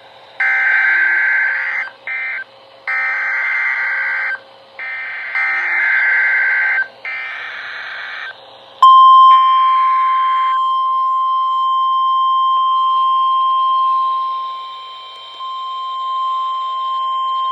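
Emergency Alert System tones on NOAA Weather Radio. First come several harsh buzzing bursts of SAME digital header data, each about a second or more long with short gaps. About nine seconds in, the steady 1050 Hz warning alarm tone starts and holds, announcing the next warning.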